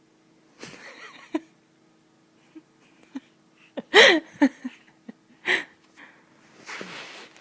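Five-and-a-half-month-old baby giving short, breathy, cough-like laughs, about five separate bursts, the loudest about four seconds in with a brief squeaky voiced note.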